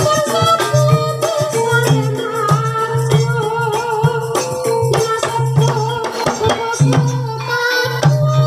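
Live Javanese gamelan music of the kind that accompanies an ebeg horse-trance dance: drumming and struck metal percussion with a low note pulsing about twice a second, and a singing voice wavering over it.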